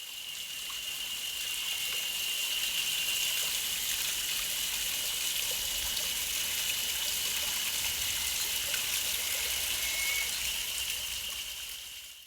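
Running water, a steady rushing and trickling, with a thin steady high tone over it. It fades in at the start and fades out near the end.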